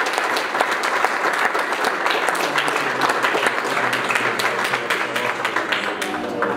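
A small group of people applauding by hand, with steady, dense clapping.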